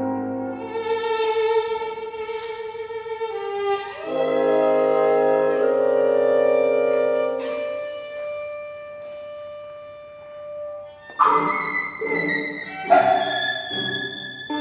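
Instrumental ensemble music with bowed strings prominent: long held notes that fade away, then sharper, accented notes near the end.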